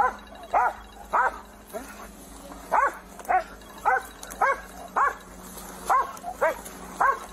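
A dog barking over and over, about two barks a second, each bark short and rising then falling in pitch, with a brief pause about two seconds in.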